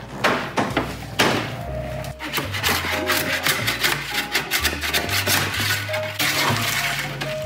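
Metal spatula scraping baked potato chips loose from a metal sheet pan in irregular strokes, over background music with a steady bass line.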